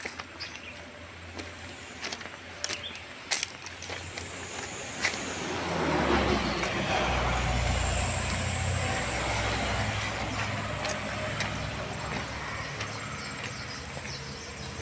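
A motor vehicle's engine rumble swelling in about five seconds in and slowly fading, with scattered sharp clicks before it.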